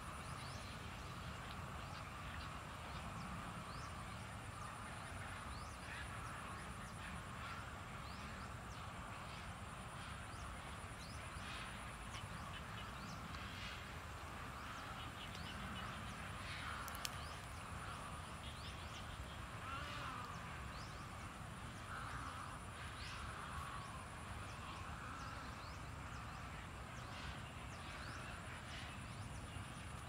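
A large flock of birds calling, many short calls overlapping without a break, over a steady low rumble. A single sharp click a little past halfway.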